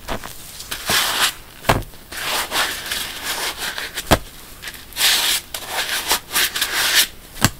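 Wet sponge squeezed by hand, squelching in irregular bursts, with a few sharp clicks among them.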